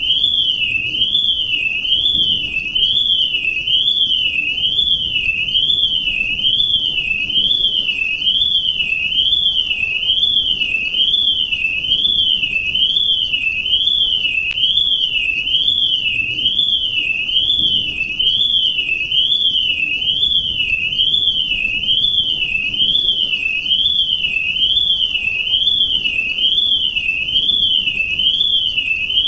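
Loud electronic alarm tone, a high pitch sweeping evenly up and down a little more than once a second, without a break.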